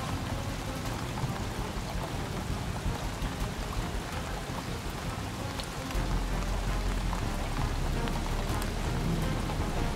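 Steady rain, with a low rumble that comes in about six seconds in.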